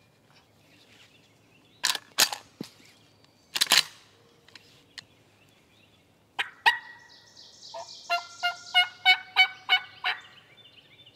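Wild turkey calling: a few sharp clucks, then near the end a run of about eight evenly spaced calls, about three a second.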